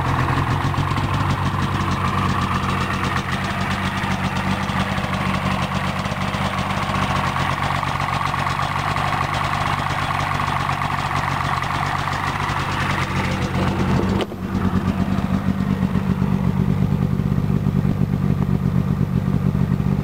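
2005 Polaris XC SP 600 snowmobile's Liberty 600 two-stroke twin idling steadily. About fourteen seconds in the sound drops out for a moment, then resumes with a deeper low tone.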